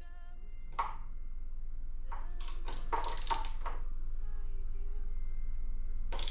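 Metal tools and parts clinking and clattering. There is a single clink about a second in and a longer run of clatter between about two and four seconds in.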